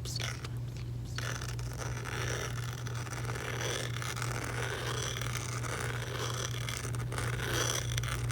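Layered close-miked ASMR mouth sounds: a dense, continuous crackling texture that sets in about a second in, over a steady low hum.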